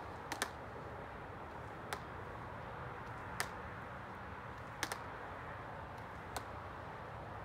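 Short, sharp clicks at irregular intervals, roughly one every one to one and a half seconds, some in quick pairs, over a steady low background hum.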